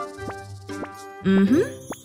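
Light children's cartoon background music with plucked notes. About 1.3 s in, a louder low note glides quickly upward as a comic sound effect.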